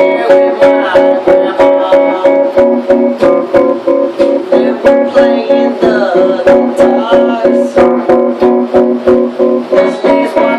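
Music: a guitar strummed in a steady rhythm, about three strums a second, over a held chord.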